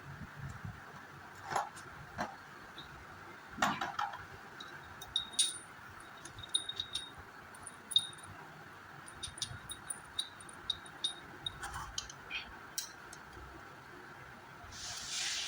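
Small steel motorcycle gearbox parts clinking and knocking against each other as they are handled, a run of short ringing metallic clicks with a few louder knocks in the first few seconds. A brief hiss comes near the end.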